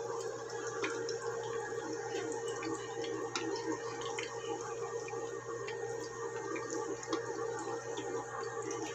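Mendol patties of fermented tempeh deep-frying in a pan of hot oil: a steady sizzle and bubbling with scattered small pops and crackles, over a steady low hum.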